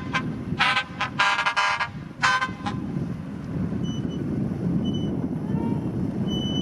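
A vehicle horn honking in four short blasts, one of them longer, over the steady low rumble of heavy diesel machinery; later come a few faint, short, high beeps.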